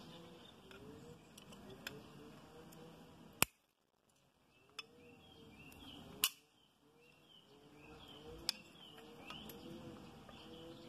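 Side-cutting pliers snipping nylon trimmer line: two sharp snaps about three seconds apart, then a lighter click near the end.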